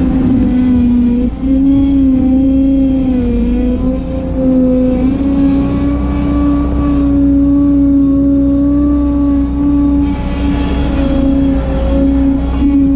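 Bobcat 743 skid steer running under load, a steady whine over a low rumble, the note sagging and recovering slightly as the machine works. A brief hiss rises about ten seconds in.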